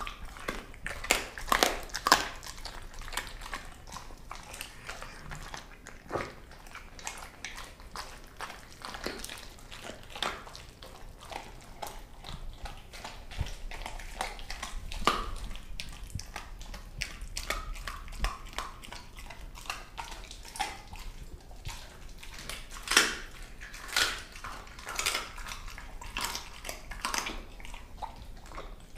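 Doberman eating a bone-heavy raw meal, with irregular crunching and chewing. The crunches are loudest near the start and again in a spell about three-quarters of the way through.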